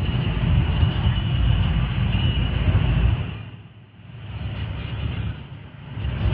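Inside the cabin of a 2008 Pontiac Grand Prix at about 100 mph: its 3800 Series V6 runs hard under a steady drone of engine, wind and tyre noise. The noise drops away sharply about three and a half seconds in, and again briefly near the end.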